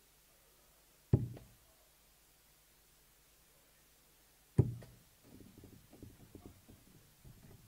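Two steel-tip darts hitting a bristle dartboard, one sharp thud about a second in and another about three and a half seconds later. Faint, irregular small knocks follow in the last few seconds.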